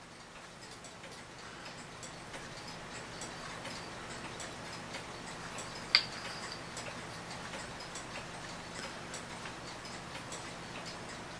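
Mechanical wind-up clock ticking steadily, with one sharp click and a brief ring about six seconds in.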